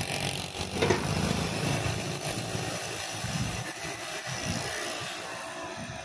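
Green tender coconut being trimmed and scraped with a machete: rough fibrous husk scraping, with a sharp chop about a second in, over low traffic rumble that fades away.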